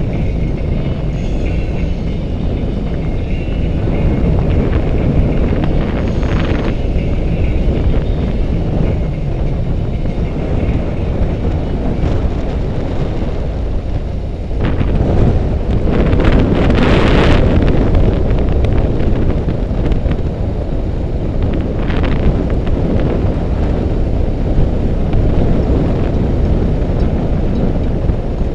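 BMW RT touring motorcycle riding along a gravel road, its engine running steadily under wind noise on the microphone. A louder rushing stretch comes about halfway through.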